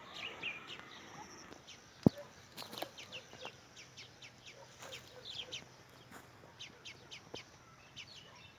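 Farm birds calling in many short, quick chirps and clucks. A single sharp knock about two seconds in, with a smaller one later.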